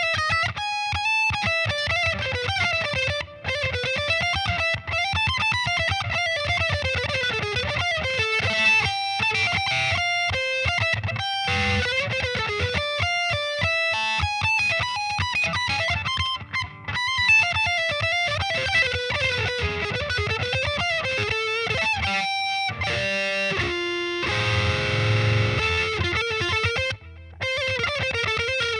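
Distorted electric guitar, a Solar A1.7D LTD through a Peavey VYPYR 60-watt combo amp, playing fast single-note lead runs that climb and fall, with a few brief pauses and a held chord about four-fifths of the way in.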